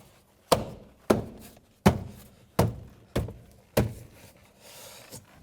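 Rear door trim panel being pressed onto the door of a 2012 Mitsubishi Outlander, with its retaining clips seated one after another: six sharp thunks over about four seconds.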